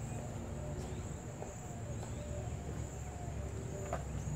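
Steady high-pitched insect trill over a low rumble of background noise, with one sharp click near the end.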